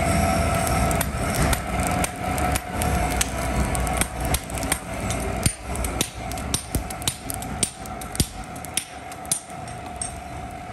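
Hand-forging: a hand hammer and a striker's sledge beat red-hot iron held in tongs, a quick irregular run of metal blows at about two to three a second over a steady hum.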